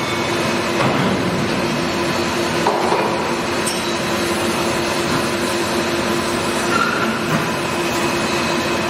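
CNC vertical lathe running with its chuck and table spinning: a steady mechanical hum with a held tone over a rushing noise.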